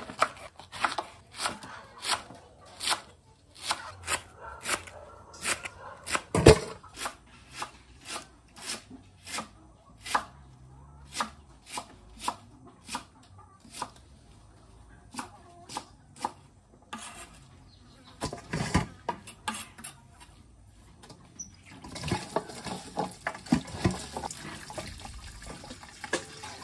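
Kitchen knife chopping cabbage on a wooden cutting board: sharp knocks at an uneven pace of about one or two a second, the loudest about six seconds in. In the last few seconds a tap runs water into a steel bowl of shredded cabbage, with clinks of handling.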